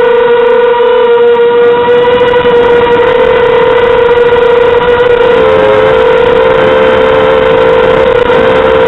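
Mini quadcopter's 2400 kV brushless motors and propellers whining at a steady pitch. The tone wavers and splits slightly about halfway through as the motor speeds shift.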